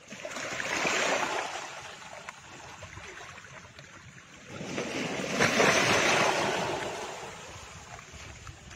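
Two long swells of rushing noise, like surf washing in, in a channel-intro sound effect. The second swell is louder and peaks about five to six seconds in.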